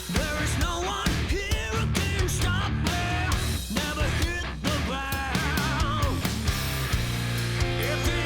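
Rock music with a drum beat, bass and guitar, and a sung or lead melody line over it.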